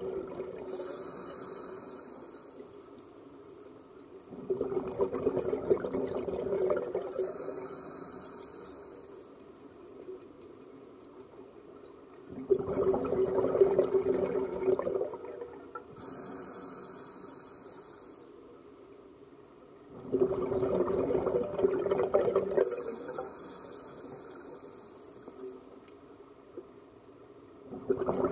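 Scuba diver breathing through a regulator underwater: a hissing inhalation, then a louder rush of exhaled bubbles, repeating about every eight seconds.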